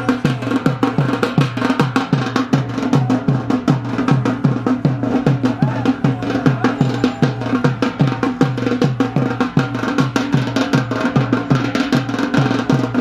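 Yemeni folk drums playing a bara'a dance rhythm: deep drum strokes, each dropping slightly in pitch, about two to three a second, under fast, sharp stick strikes.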